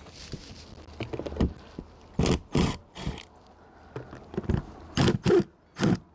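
A series of short, irregular knocks and clunks, several coming in quick pairs, from handling tools and metal fittings on a trailer's rubber roof.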